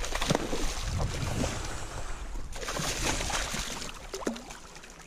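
Water splashing and rushing around a kayak, with wind buffeting the microphone; the splashing dies down near the end.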